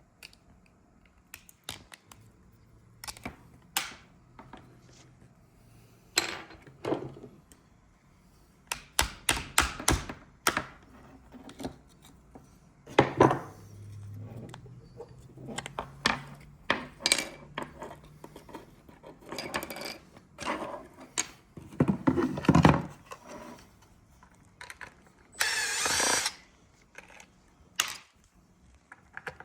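Irregular clicks, knocks and short scraping rattles of tools working on a plastic-cased halogen leak detector as it is taken apart.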